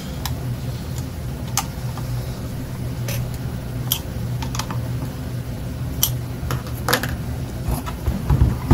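Sparse light clicks and taps of a 4 mm hex key turning the screws in the microscope's metal electrical base, and of the microscope being handled, over a steady low hum. A louder knock comes near the end.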